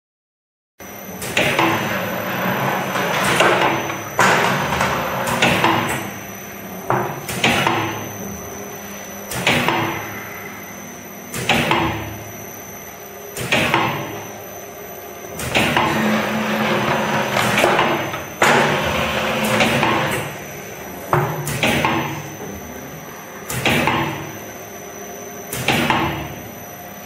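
Sandorè filling-extruder and tray-loading machine running as it forms filled maamoul cookies, starting about a second in: a sharp mechanical knock about every two seconds, each followed by a fading rush of noise, over a steady machine hum with a faint high whine.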